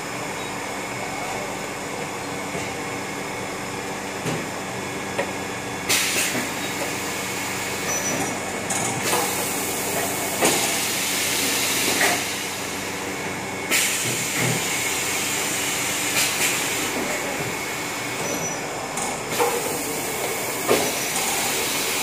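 Bottling-line machinery running: a steady mechanical hum from the bottle conveyor, broken by repeated bursts of hissing, each a second or two long, and a few sharp knocks.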